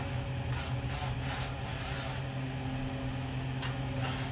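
A steady low electrical hum in a small room, with a few brief rustling, scraping handling noises in the first half and a faint click near the end.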